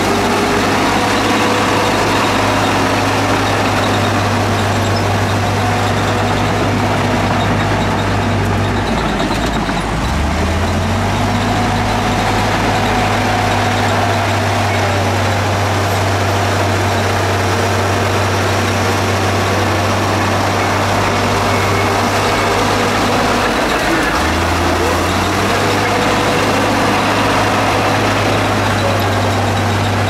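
Heavy construction machine's engine running steadily. Its note sags and recovers about ten seconds in and changes again near the 24-second mark, as the machine works under changing load.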